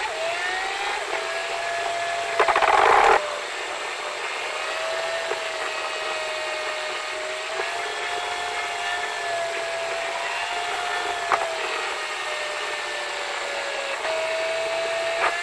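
Steady high whine inside a moving car, its pitch drifting slightly up and down, with a brief loud rush of noise about two and a half seconds in.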